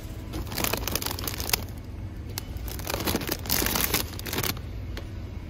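Plastic snack bags crinkling as they are handled on a store shelf, in two stretches: about half a second in, and again from about three seconds in. A low steady hum runs underneath.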